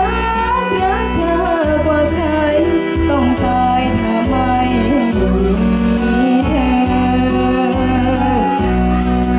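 A girl singing into a microphone, amplified over backing music with a heavy, pulsing bass.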